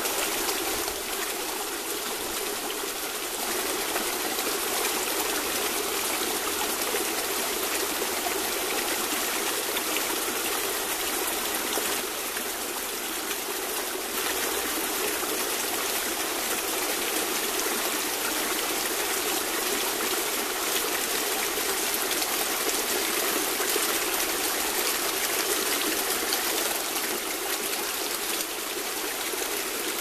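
Small brook running steadily and splashing in a little cascade over stones.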